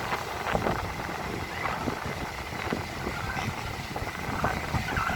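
Wind buffeting the microphone in uneven low rumbles, over a hiss of outdoor ambience.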